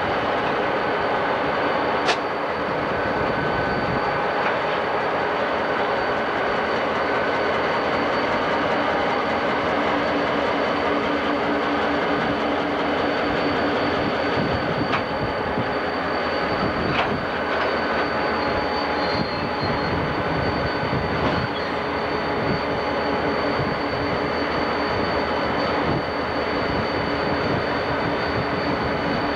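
Diesel freight locomotives, a Conrail EMD road switcher leading a Norfolk & Western GP35, rolling slowly past with a steady engine rumble and wheel noise and a couple of sharp clicks.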